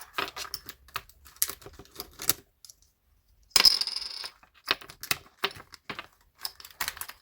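Handling of a disc-bound paper planner and its inserts: a run of small, sharp clicks and taps, with a brief scraping rustle about three and a half seconds in.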